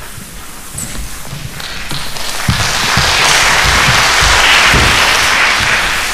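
Mops and brooms swishing across a wooden stage floor, picked up close by floor microphones. The hiss swells to a peak in the middle and fades near the end, with scattered dull thumps underneath.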